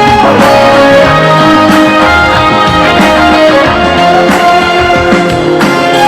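Trot song music played loudly through a stage PA: an instrumental passage, a melody line carried over full band accompaniment.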